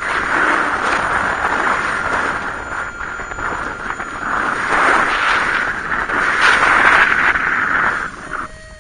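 Strong wind rushing over the microphone in paraglider flight, gusting louder about two-thirds of the way in, then dropping away sharply near the end.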